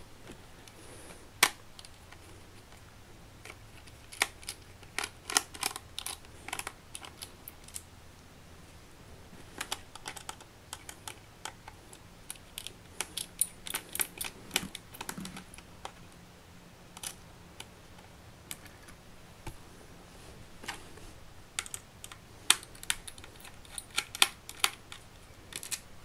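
Clusters of small, sharp clicks with quiet pauses between, from a small screwdriver working the screws that hold a laptop's steel hard-drive case to the chassis.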